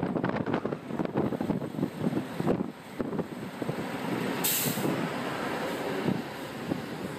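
Road and wind noise buffeting the microphone from a moving open car, with a bus passing close alongside; about four and a half seconds in comes a short, sharp hiss of air from the bus's air brakes.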